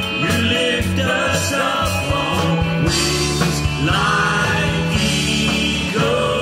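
Contemporary Christian worship song: a sung vocal line over band accompaniment with steady bass.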